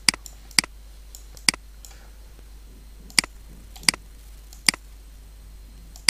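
Computer mouse button clicking: about six short, sharp single clicks at uneven intervals.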